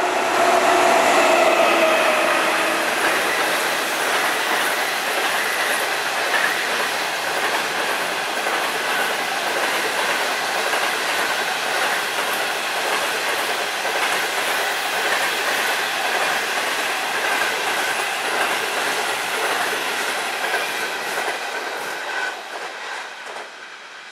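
An HXD3C electric locomotive passes close by with a hum of several tones that drop a little in pitch. Its passenger coaches then roll past with a steady rumble and rapid clicking of wheels over the rail joints. The sound fades near the end as the train moves away.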